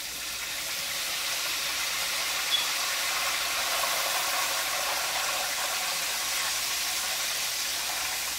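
Chicken frying in hot oil in a pan on the stove: a steady sizzling hiss that swells over the first few seconds and then holds, with one light click about two and a half seconds in.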